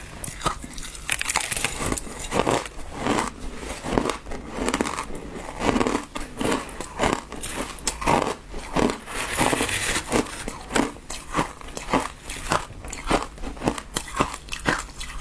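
Close-up crunching and chewing of mouthfuls of shaved ice, heard close on a clip-on microphone: a quick, uneven run of sharp crunches, a few each second.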